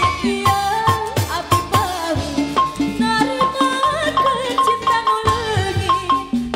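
Live dangdut band: a woman sings into a microphone over violin, keyboard, bass guitar and hand drums, with a steady beat.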